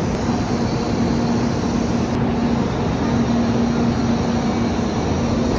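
A steady low machine hum over a constant wash of background noise, with the hum breaking off briefly twice.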